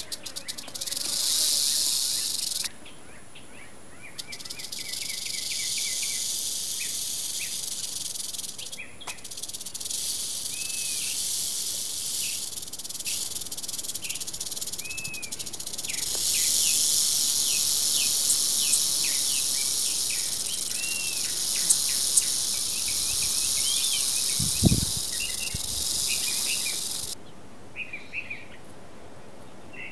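Western diamondback rattlesnake rattling its tail, a steady high buzz: the snake's warning rattle. It breaks off for about a second and a half around three seconds in, then runs on until it stops suddenly near the end, with birds chirping behind it.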